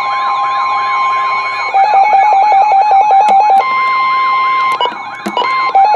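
Weather-radio alert sounding: a steady warning tone with a repeating warbling siren alarm over it, broken by a run of rapid beeps about two seconds in and another short run near the end, with a few sharp clicks. This signals that a warning is being broadcast.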